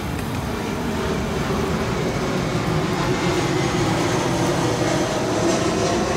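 Steady engine-like rumble that grows a little louder over the first few seconds.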